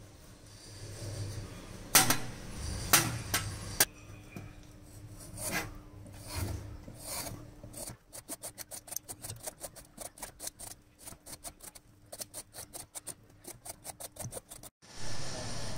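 A metal vegetable peeler scraping the skin off a raw green papaya in quick repeated strokes, about four or five a second, through the second half. Before that, a knife trimming the papaya on a steel tray makes a handful of louder separate scrapes and knocks.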